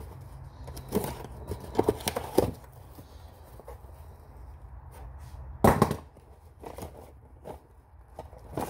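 A cardboard box being cut and torn open by hand and its packed contents handled: short sharp rips, crackles and knocks, the loudest about six seconds in, over a steady low hum.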